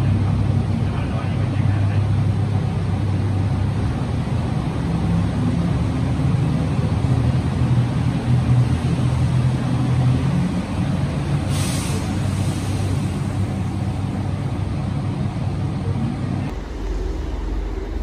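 A train running, a steady low drone with a short hiss of air about twelve seconds in; the sound drops off abruptly near the end.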